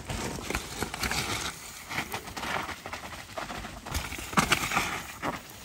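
Mountain bike descending a steep, wet, muddy forest trail: tyres sliding and crunching over mud, roots and twigs, with irregular knocks and rattles from the bike. The loudest knocks come about four seconds in.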